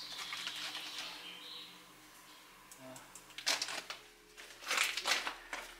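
Loose slate rubble clattering and scraping under boots and hands as someone climbs down a pile of broken slate. The clatter comes in two short bursts, about three and a half and five seconds in.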